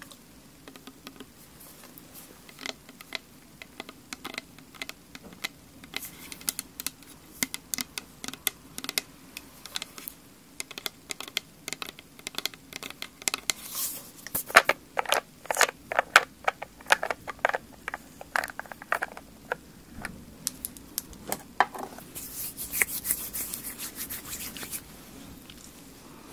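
Long nails tapping and scratching on a plastic toner bottle close to the microphone: a run of light clicks that grows denser and louder in the middle. Near the end, a short soft hissing rush.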